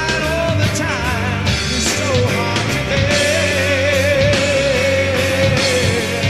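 Rock band playing live with electric guitar, bass and drums, and a male voice singing. From about three seconds in the singer holds one long wavering note.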